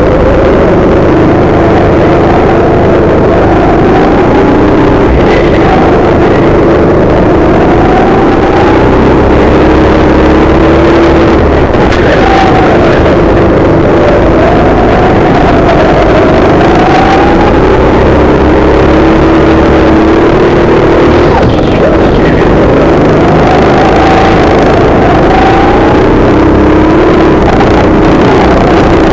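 Go-kart engine at racing speed, heard loud and close from the driver's seat, its pitch rising and falling as the throttle opens and closes through the corners.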